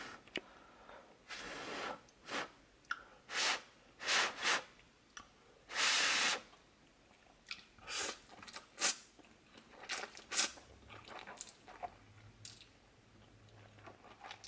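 A person eating a mouthful of instant ramen noodles: slurping and chewing in irregular short bursts with pauses between, the longest burst about six seconds in.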